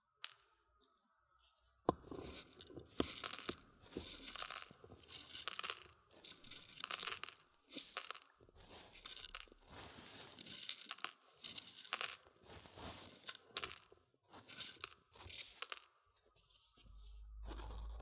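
Dried mung beans rattled and scraped against the silicone ear of a binaural microphone, giving close, crunchy grainy rustles with sharp clicks. It starts about two seconds in and goes on in uneven bursts, then gives way to a low handling rumble near the end.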